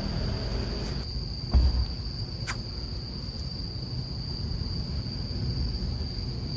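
Crickets trilling in one steady high-pitched tone over a low background rumble, with a single soft thump about one and a half seconds in and a brief click a second later.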